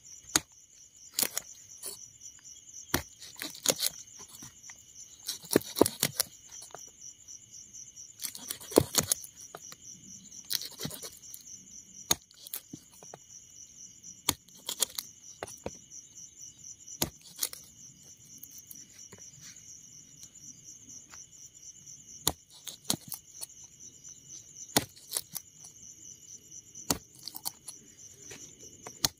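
Knife chopping meat into pieces, irregular sharp knocks spaced a second or more apart, some in quick clusters. Behind them, crickets chirr steadily at a high pitch.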